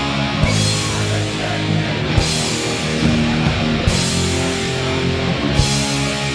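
Live metal band playing held, distorted guitar and bass chords over drums, with a heavy accent and crash-cymbal wash about every second and a half to two seconds.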